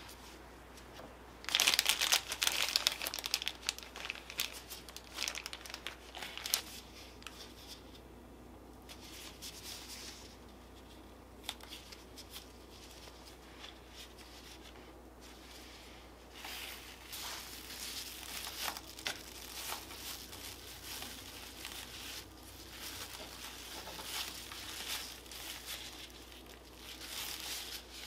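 Thin plastic crinkling as hands in disposable plastic gloves handle raw pork belly slices, mochi and pea shoots on a cutting board. The loudest crinkling comes in a burst of a few seconds starting about a second and a half in, goes quiet in the middle, and returns more softly in the second half.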